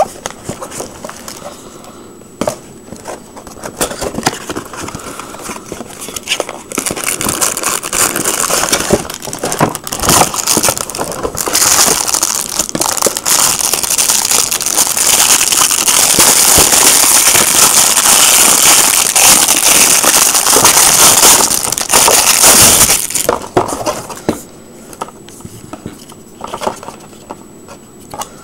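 Plastic packaging crinkling and crackling as items are unwrapped by hand, loud and nearly continuous for about ten seconds in the middle, with quieter scattered handling noise before and after.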